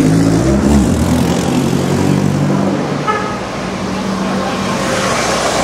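A car's engine running close by, with a short horn toot about three seconds in.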